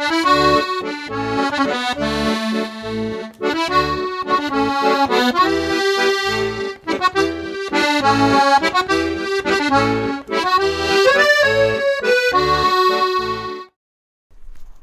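Instrumental music: a melody over a regular pulsing bass, cutting off suddenly about a second before the end.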